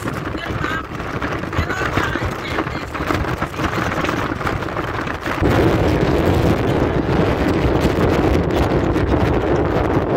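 Wind buffeting the microphone on the open back of a moving truck, a steady rush that grows louder about five seconds in.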